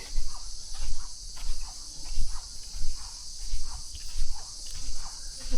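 Footsteps on a walking track, one shoe squeaking at each step, about one step every 0.7 seconds, over a steady high-pitched chorus of insects.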